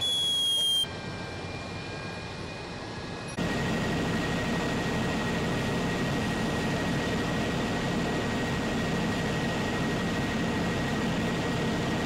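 Steady mechanical drone of fire engines running at a fire scene, with a faint steady high whine over it, starting about three seconds in after a cut. Before it, a brief high squeal that falls slightly in pitch in the first second.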